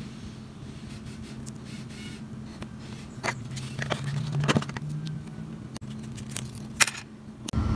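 Small objects being handled by hand: scattered clicks and light scrapes over a steady low hum, with sharper clicks about four and a half and seven seconds in.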